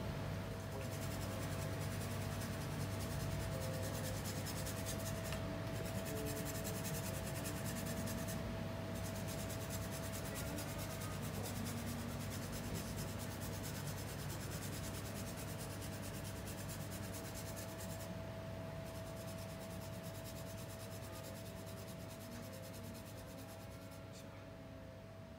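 Frozen, skin-seared bottarga (karasumi) being grated on a fine metal rasp grater: a rapid dry scraping in strokes, with a few short pauses, that fades out near the end. A steady low hum with a faint steady whine runs underneath.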